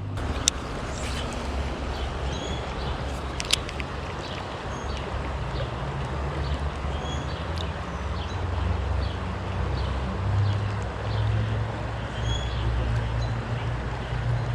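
Creek water rushing steadily over a low rumble, with faint bird chirps and a few sharp clicks near the start.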